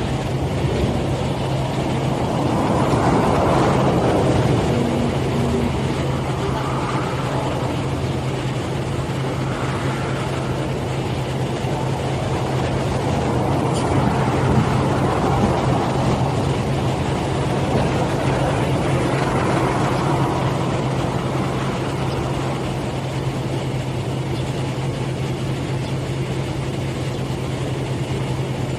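Steady low hum with road traffic swelling past several times.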